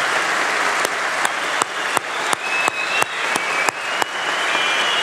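A large assembly applauding. From about a second in until near four seconds, a loud clap on a regular beat of about three a second stands out over the general clapping.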